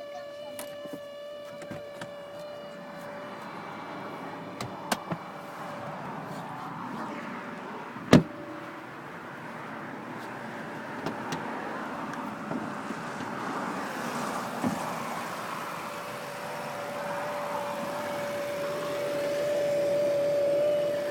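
Lexus LX570 cabin blower fan running in cold weather, making a steady tonal whine over a rush of air; the tone fades in the middle and comes back louder near the end. A single sharp click about eight seconds in.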